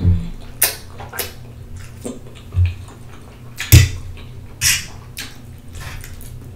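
Close-miked mukbang eating sounds: spaghetti in tomato sauce slurped in and chewed, with a series of short, sharp, wet mouth smacks and slurps.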